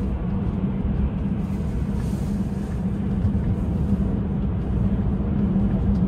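Steady tyre and road noise inside the cabin of a Tesla Model 3 Standard Range Plus driving at highway speed on a snowy winter road: an even low rumble with a constant hum and no engine note, since the car is electric.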